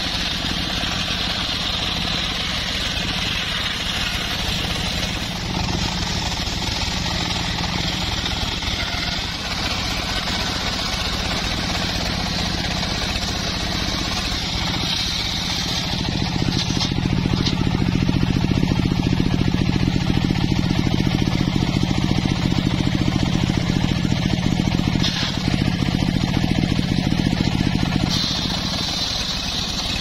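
An engine-driven homemade circular sawmill running steadily, its large blade sawing a mahogany beam. It grows louder from about halfway through until near the end, while the blade is working through the wood.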